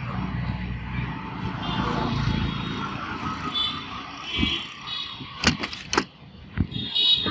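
Town street traffic: a low rumble of passing vehicles with a few short, faint horn toots. Three sharp clicks come a little past five seconds in.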